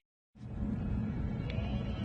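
About a third of a second of silence, then a steady low rumbling background sound sets in.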